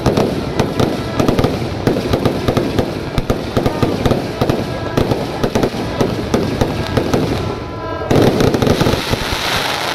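Fireworks display going off continuously: a rapid, unbroken run of sharp bangs, pops and crackles from bursting aerial shells. About eight seconds in, a denser crackling hiss takes over.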